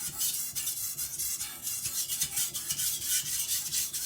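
Steel chopper blade being stroked quickly back and forth on a whetstone, a continuous scraping rub in rapid repeated strokes, as the edge is sharpened.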